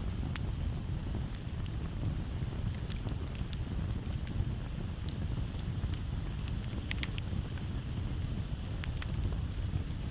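Campfire burning, with scattered sharp crackles and pops over a low steady rumble. Crickets chirr faintly and steadily behind it.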